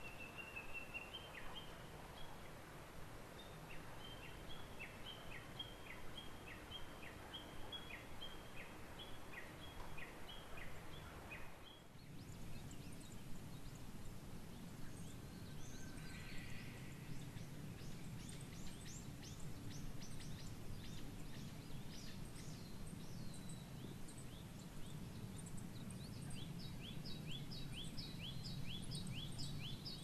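Wild birds singing: series of quick, repeated downward chirps. About twelve seconds in, a higher, faster chirping series takes over, with a low steady rumble of background noise underneath.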